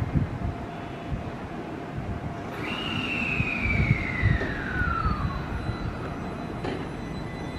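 JR West 223 series electric train moving slowly along the platform: its traction inverter whine falls steadily in pitch over about two and a half seconds as it brakes, over a low rumble of the running gear.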